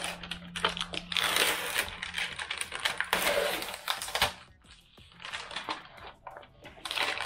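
Cardboard product box and its packaging being opened and handled: rustling and scraping, with clicks and light knocks as the pieces inside are lifted out.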